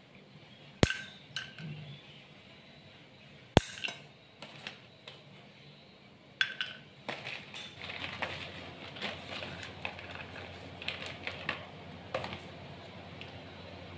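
Metal kitchen scissors snipping dried cherries, with sharp metallic clinks of the blades against a small steel bowl. Two loud clinks come about a second and three and a half seconds in, another near the middle, then a quicker run of lighter snips and clicks.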